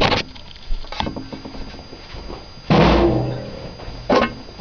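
Hollow knocks from a 3/4-inch PVC ramrod stuffing a paper towel down a 1.5-inch PVC barrel: a few sharp knocks, the loudest about three seconds in with a short ringing tail.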